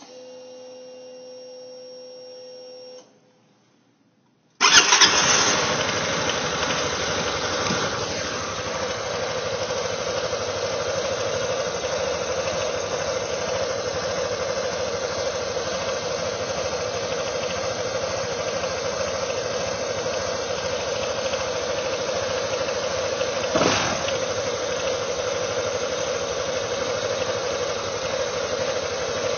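A SYM Nikita 300 scooter's single-cylinder engine, after a steady hum in the first three seconds and a short pause, starts cold about four and a half seconds in and idles steadily, rising briefly once near the end. The idle carries the knocking noise that the owner is recording as a cold-engine fault.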